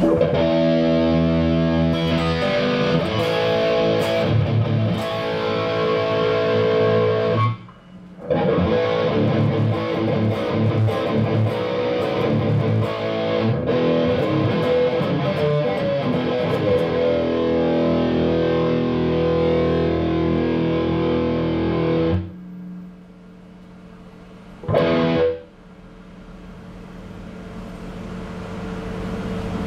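Electric guitar played through an EGO TM2 overdrive pedal into a guitar amp: distorted chords and riffs, with a short break about 8 seconds in. The playing stops about 22 seconds in, a single short chord follows a few seconds later, and then the amp's hiss swells toward the end.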